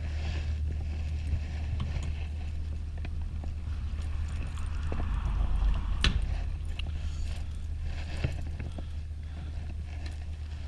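Small knocks and clicks of a fish being handled in a small plastic fishing boat, with one sharper knock about six seconds in, over a steady low hum.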